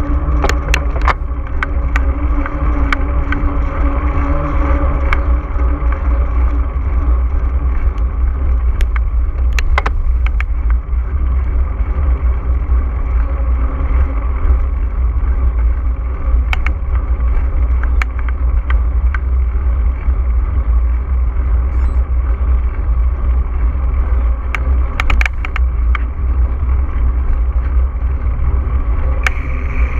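Mountain bike ride heard through a GoPro action camera: a steady loud low rumble of wind and rolling tyres, with scattered sharp clicks and knocks from the bike rattling over rough ground.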